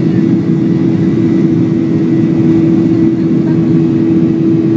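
Boeing 737's CFM56 turbofan engines running steadily as the airliner taxis, heard from inside the cabin as a loud even rush with a steady low hum.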